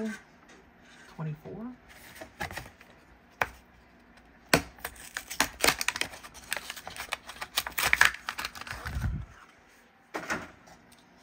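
Hot Wheels blister pack being torn open by hand: the clear plastic blister crackles and clicks and the cardboard card tears in a rapid run of sharp crackles, densest in the middle, with a low thud near the end.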